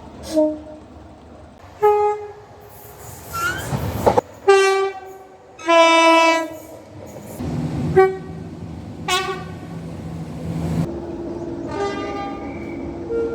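Train horns sounding a rapid series of short blasts, several giving two notes, high then low, with a longer held note near the end. A sharp knock comes about four seconds in, and a train's steady low running noise sits beneath the blasts in the second half.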